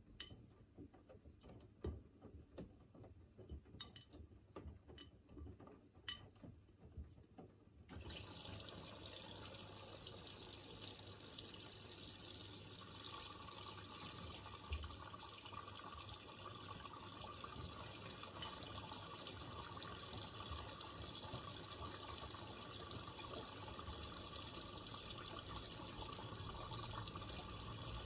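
Miele Navitronic W3985 washing machine: a few scattered clicks, then about eight seconds in water starts rushing in steadily as the machine fills.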